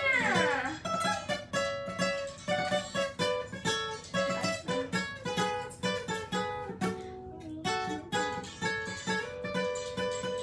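Acoustic guitar played solo, picking out a melody note by note at about three notes a second, settling into a held note near the end.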